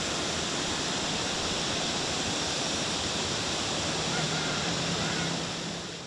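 Steady outdoor rushing noise, even and unbroken, with a faint low hum about four seconds in.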